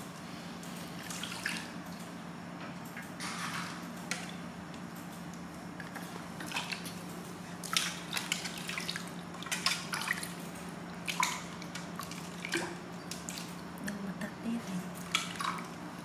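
Water sloshing and dripping in a stainless steel basin as hands wash a baby monkey: short, irregular splashes and drips, over a faint steady low hum.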